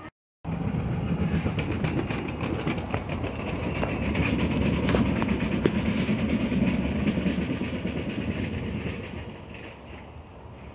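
A vehicle passing by: a rumble that builds to its loudest about halfway through and fades away near the end, with scattered light clicks.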